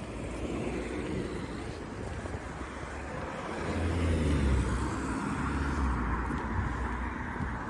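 Road traffic passing on the street alongside, a car's tyre and engine noise swelling to a peak about four seconds in and fading, with wind buffeting the microphone.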